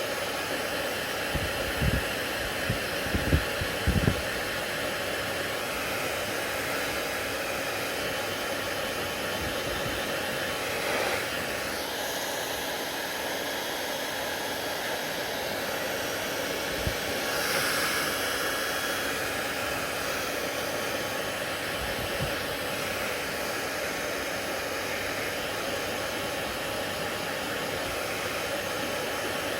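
Hair dryer running steadily, a constant even blowing noise. A few short low bumps a couple of seconds in.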